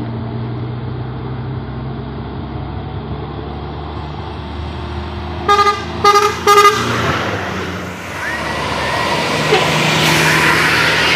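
Heavy diesel trucks and buses running up a steep incline, with a steady low engine drone. About halfway through, a vehicle horn sounds three short blasts, the loudest sound here. Near the end, a bus's engine grows louder as it climbs toward the listener.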